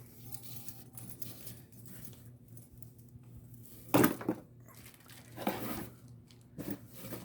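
Handling noise from a soft throw blanket being unfolded and shaken out, with a sudden loud knock about four seconds in and a few smaller bumps after it.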